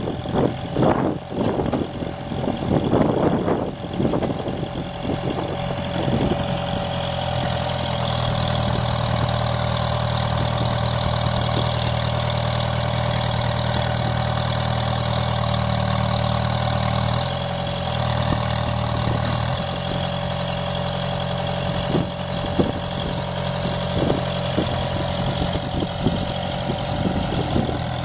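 Deutz diesel engine of a Vermeer RT650 trencher running steadily with a high steady whine over it. The first few seconds are rougher and uneven before it settles, and there are a few sharp knocks in the last part.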